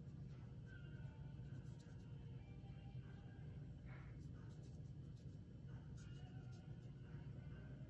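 Faint scratchy strokes of a small paintbrush working paint onto a chainsaw-carved wooden cat, over a steady low room hum.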